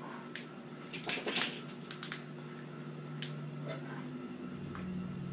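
Hands handling a plastic Plus-Plus tube and its small plastic pieces and packaging: a cluster of sharp clicks and crinkles about a second in, a few more around two and three seconds, over a steady low hum.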